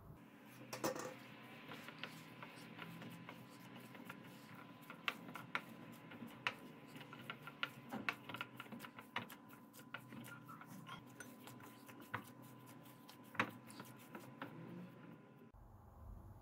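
Hands kneading soft, sticky yeast dough in a bowl: irregular sticky slaps and clicks, with occasional sharper knocks against the bowl, over a faint steady hum.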